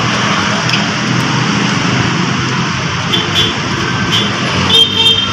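Steady background vehicle noise: a continuous low rumble with hiss, with a few faint short chirps near the end.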